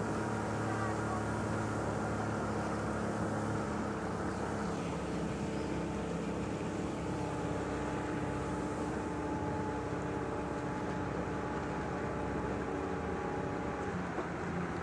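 A small boat's engine running steadily, a hum made of several held tones that shift slightly in pitch about three and a half seconds in.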